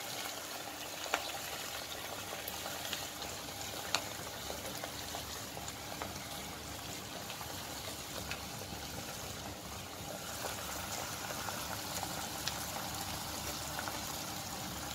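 Onions, capsicum and green chillies cooking in oil with soy sauce and vinegar in a nonstick pot on a medium gas flame: a steady sizzle and bubbling, with a few light clicks as fried chicken pieces go in and the spoon touches the pot.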